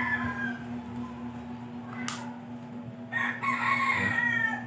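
A rooster crowing: the tail end of one crow at the start, then a second long crow about three seconds in, its pitch falling slightly. A single sharp click about two seconds in.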